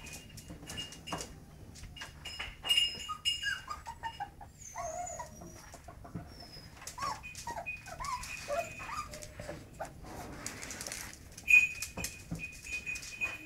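Slovenský kopov puppies whining and yelping in short rising and falling cries, with small scratches and clicks of paws on the concrete floor. A sharp, high squeak is the loudest sound, about eleven and a half seconds in.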